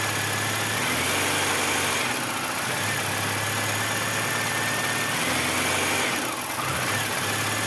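BMW E90 engine running steadily at low speed, with a faint whine that dips in pitch twice. The accelerator is pressed but the throttle butterfly stays shut and the engine only rises to about 1500 RPM, a fault being traced to the accelerator pedal position sensor.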